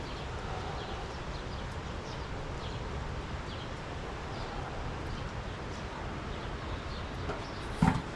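Steady outdoor background hiss with faint, scattered bird chirps, and one sharp knock near the end.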